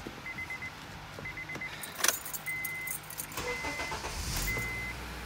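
Honda Accord's warning chime beeping repeatedly, with a jangle and click of the ignition key about two seconds in. Near the end the 2.4-litre four-cylinder engine cranks, starts and settles into a low, steady idle through its newly replaced catalytic converter.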